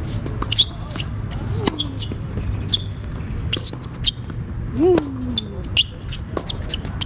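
Tennis rally on a hard court: sharp pops of the ball off the rackets and the court at irregular intervals, with short high squeaks of tennis shoes. A brief swooping call, rising then falling in pitch, comes about five seconds in.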